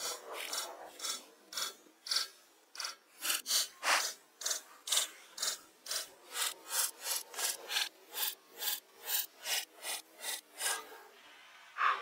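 Small hatchet chopping and shaving the end of a peeled wooden pole, a quick run of short, sharp strokes at about two to three a second that stops about a second before the end.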